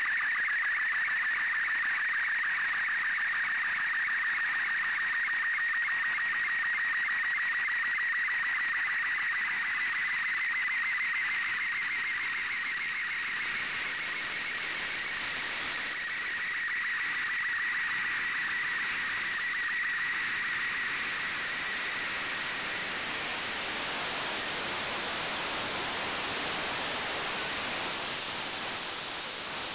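Slow-scan television (SSTV) image signal from the LAPAN-A2 (IO-86) satellite, FM-demodulated from an RTL-SDR receiver: a rapidly warbling tone near 2 kHz over hiss. About two-thirds of the way through the tone weakens, and near the end it is lost in plain FM static as the downlink fades.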